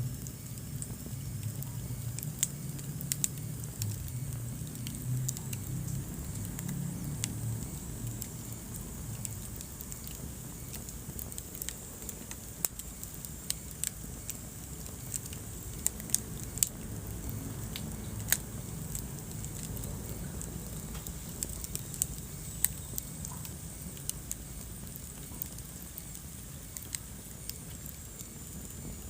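Wood fire crackling in a fireplace: irregular sharp pops and snaps of burning logs over a low, steady rumble of the flames, which eases off after the first several seconds.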